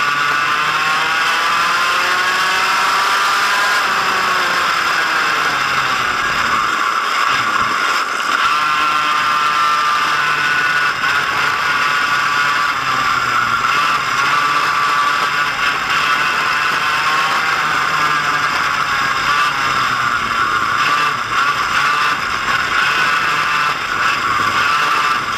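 Kart engine at racing revs, heard onboard, its pitch falling as the kart slows into corners and climbing again as it accelerates out, twice over.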